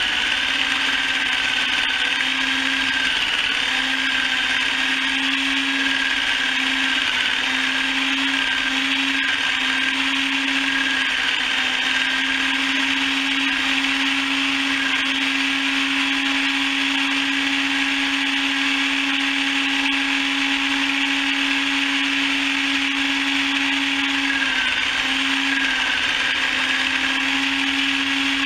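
Mechanical chicken plucker running steadily, its motor spinning with a continuous whir. A steady hum in the sound cuts out briefly several times in the first dozen seconds and again near the end.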